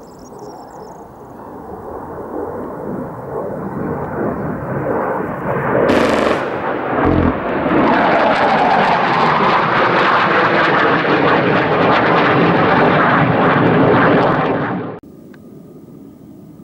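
Panavia Tornado jet's twin engines growing steadily louder as it runs in, a short sharp burst from its 27 mm Mauser cannon about six seconds in, then loud jet noise as it passes overhead. The jet noise cuts off abruptly near the end.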